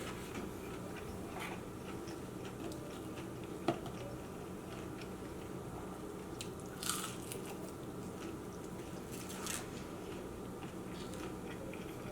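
A person chewing and biting into fast-food chicken and fries close to the microphone, with a few sharp crunches over a steady low background hum.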